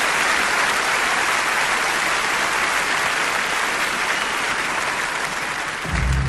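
Audience applauding steadily; near the end low sustained tones come in as the music begins.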